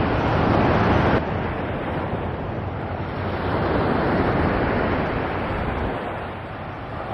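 Sea waves washing ashore with wind buffeting the microphone. The noise swells in the middle and falls back near the end.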